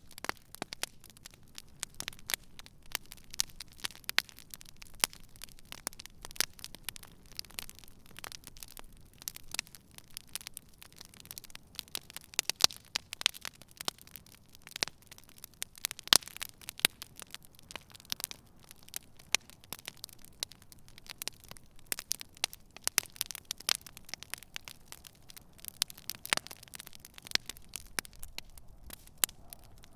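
Wood campfire burning, with many sharp irregular crackles and pops over a low steady hiss.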